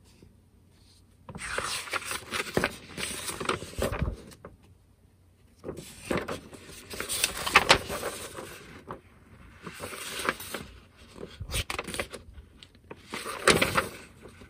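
Paper pages of a model-kit instruction booklet rustling as they are handled and turned, in several bursts with short quiet gaps between.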